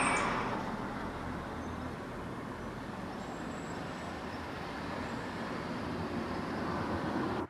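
Steady road and engine noise inside the cabin of a moving Ford vehicle.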